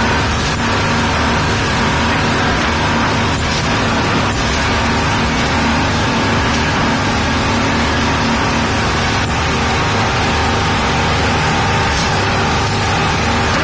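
Speedboat running at steady high speed, heard from on board: a constant engine drone under a loud rush of wind and water spray.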